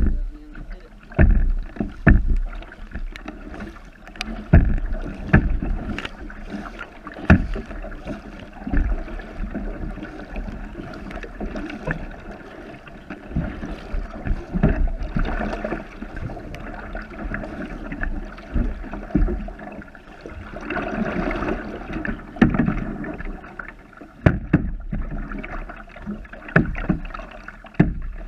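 A kayak being paddled from on board: paddle strokes splashing and water washing along the plastic hull, with sharp knocks at irregular intervals. The wash of water swells for a couple of seconds about three-quarters of the way through.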